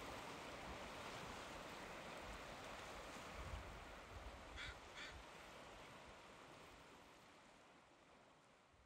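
Near silence: a faint steady hiss that slowly fades out, with two brief faint sounds a little past halfway.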